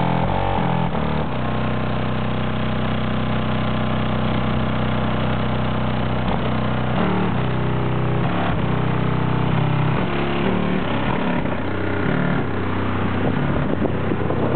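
Bass-heavy music played loud through four old-school Rockford Fosgate 15-inch subwoofers in a pickup, heard from outside the closed truck: deep bass notes change every second or so under a muffled, distorted upper range.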